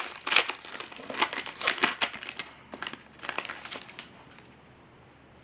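A hockey card pack's wrapper being torn open and crinkled, a quick run of crackles that dies away about four seconds in.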